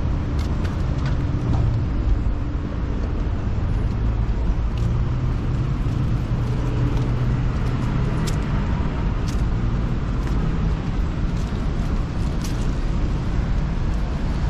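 Street traffic: a motor vehicle's engine running close by, a steady low rumble, with a few faint sharp ticks now and then.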